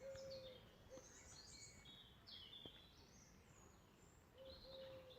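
Faint wild birdsong: scattered high chirps and short warbling phrases from small songbirds. A short steady lower note sounds at the start and again near the end.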